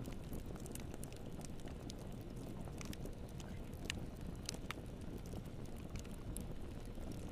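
Wood fire burning in a fireplace: a steady low rumble of the flames with irregular sharp crackles and pops, a few louder snaps around the middle.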